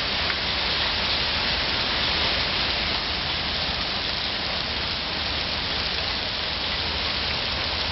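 Hail falling thick and steady, a dense continuous hiss of hailstones striking the ground and surfaces.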